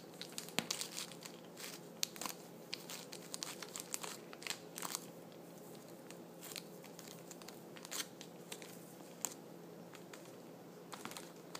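Plastic wrapper of a Milky Way bar crinkling and crackling as a cat bites and paws at it. The crackles come thick and fast for the first five seconds or so, then only now and then.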